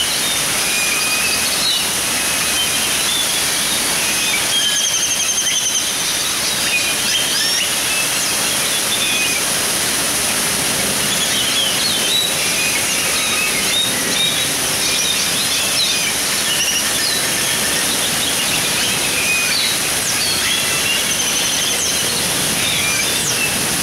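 Steady splashing of an artificial waterfall running down a rock face into a pond, with many small birds chirping over it again and again.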